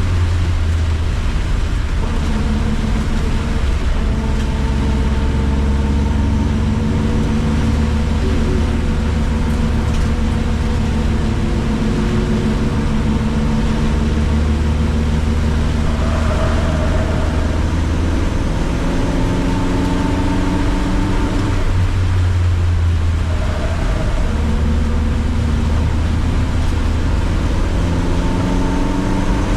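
A car engine under load on a race circuit, its note climbing slowly and then falling back several times as the car accelerates and slows through corners. Steady tyre and rain hiss from a wet track runs underneath.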